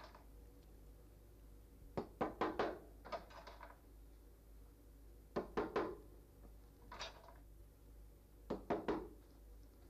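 Small hammer tapping nails through a fox pelt's hind legs into a wooden drying board. The taps come in short runs of two to four, with pauses of one to two seconds between runs.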